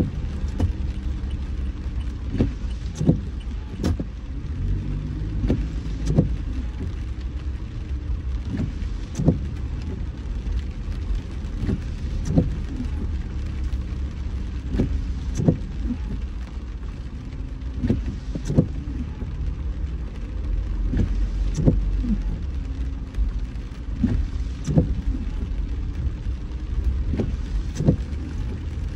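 Car driving in rain, heard inside the cabin: a steady low road and engine rumble, with short sharp taps at irregular intervals.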